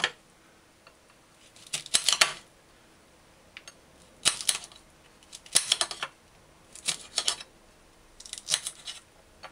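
Kitchen knife slicing okra pods into quarter-inch pieces on a ceramic plate. The blade clicks against the plate in six short runs of quick clicks, about one every second and a half.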